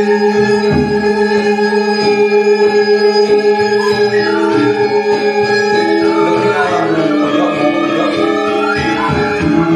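Balinese gamelan music for the Topeng mask dance: long held notes sound together and pulse in loudness, with the melody shifting to new notes partway through.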